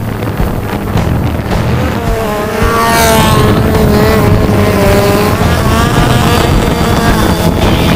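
Stunt motorcycle engine revving up about two and a half seconds in and held at high revs, in a rider's tyre-smoking stunt run.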